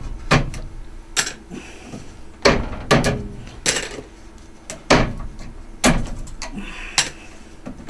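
Plastic transit clips being pried apart and popped off a 3D printer's frame: a string of sharp clicks and knocks at about one a second.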